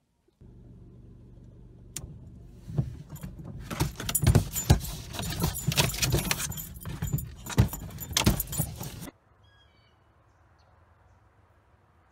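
Car cabin with the steady low hum of the car running, overlaid from about three seconds in by loud metallic jangling and rattling, which cuts off abruptly about nine seconds in.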